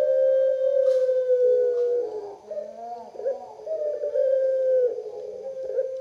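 Collared dove cooing in long, drawn-out notes, each held about two seconds and sagging slightly in pitch at its end, with short wavering breaks between them.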